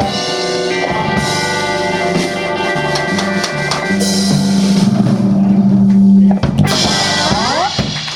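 Live blues band of electric guitars, bass and drums playing the closing bars of a song, with a strong held low note that stops abruptly about six seconds in, then a short phrase of rising notes near the end.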